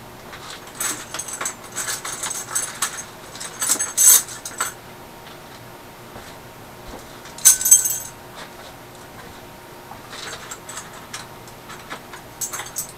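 Small metal parts clinking and jingling as they are handled, in several scattered clusters of sharp clicks, loudest about four seconds in and again just before eight seconds.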